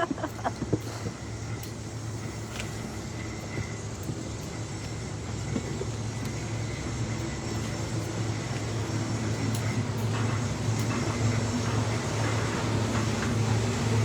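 A steady low mechanical hum under an even rushing noise, slowly growing louder.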